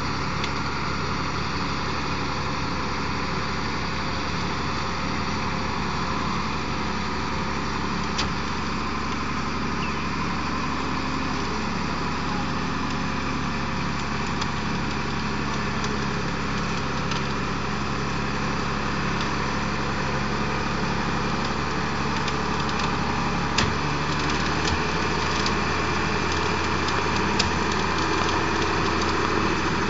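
A jeepney's engine running steadily, with a few sharp knocks, one about eight seconds in and two near the end.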